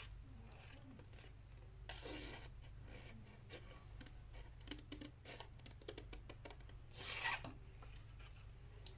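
Scissors cutting through stiff hard paper: faint snips and scraping of the blades, with two longer cutting strokes about two seconds in and about seven seconds in.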